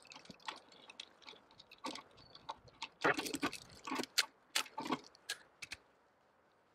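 Metal clicks and clacks from a DS39 heavy machine gun's feed mechanism and action being worked by hand, clearing a lock-up caused by a cartridge seated too shallow in the belt. Scattered light clicks, then a quick run of sharper clacks about three to five seconds in.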